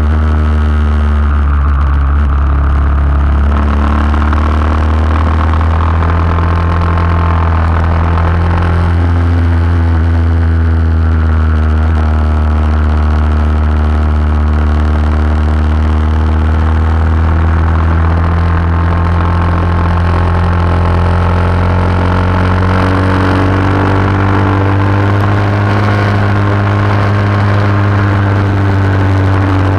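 Racing motorcycle engine heard from an onboard camera, running hard at high revs. Its pitch dips a couple of times in the first nine seconds, then climbs slowly for most of the rest, over a steady rush of wind.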